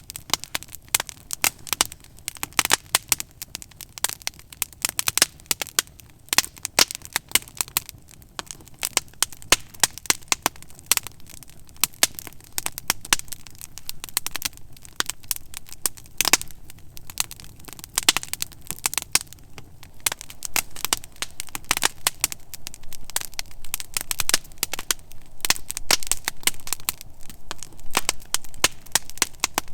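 Wood fire crackling and popping close by, with a dense, irregular stream of sharp cracks and snaps.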